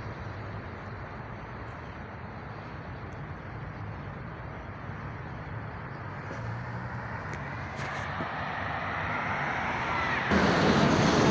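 Road traffic: a vehicle's engine and tyres growing steadily louder as it approaches, then a sudden, much louder rush near the end as it passes close by.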